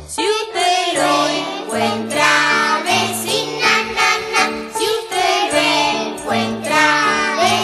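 Children's song: singing over an upbeat instrumental accompaniment with a steady, repeating bass line.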